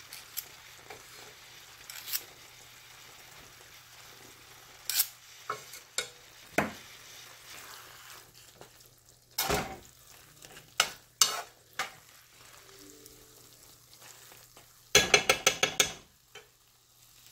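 A steel spoon stirring and scraping thick avial in a nonstick kadai, with scattered clinks against the pan and a quick run of about eight taps near the end. Faint sizzling from the pan on low heat and a steady low hum sit underneath.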